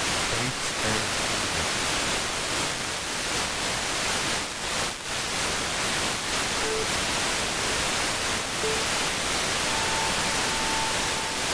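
Steady hiss and static of a weak FM broadcast signal, KBS Jeonju Radio 1 on 96.9 MHz received barely above the noise floor. Two faint short beeps are followed near the end by a longer, higher tone, the hourly time signal.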